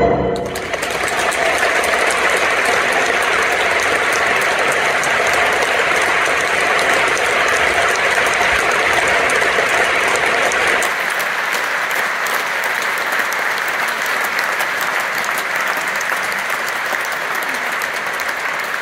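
Large audience applauding steadily in a concert hall as the music's last chord dies away. The applause eases slightly about eleven seconds in.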